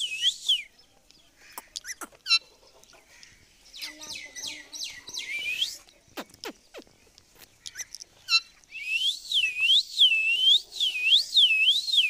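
Rose-ringed parakeet (Indian ringneck) whistling fast series of looping up-and-down notes, about three a second, in bouts. A short bout comes at the start, a longer one around the middle, and the longest and loudest near the end, with a few short chirps and clicks between the bouts.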